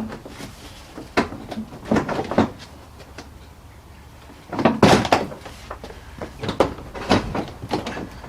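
Irregular plastic knocks and clatters of a car's front bumper cover being pulled and worked free of its clips, with a louder cluster of knocks about halfway through.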